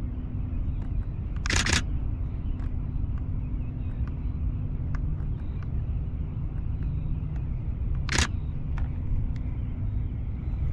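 Camera shutter firing in two short bursts, about a second and a half in and again near the end, over a steady low rumble.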